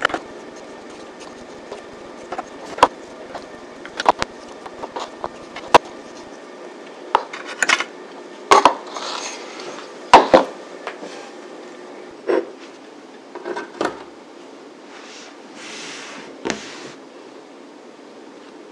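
Scattered clicks, clinks and knocks of a metal madeleine tin and baked madeleines being handled on a countertop, loudest and most frequent about halfway through, with a few brief rustles.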